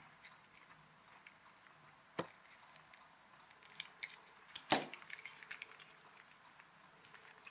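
Small hard clicks of a screwdriver and plastic parts as a small plastic toy car is prised apart: a single sharp click about two seconds in, then a quick run of clicks near the middle, the loudest about halfway through.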